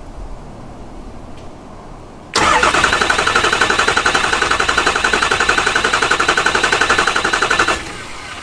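Diesel truck engine cranked over by its starter with the key out, so it turns without firing, powered by the solenoid wire held to the battery's positive terminal. About two seconds in the steady, rhythmic cranking starts suddenly; it runs for about five seconds and stops abruptly. The cranking primes the oil system, building oil pressure after an oil change.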